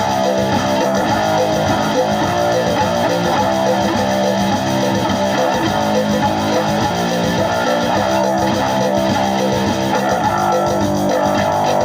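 Background music: guitar-led rock with a steady level throughout.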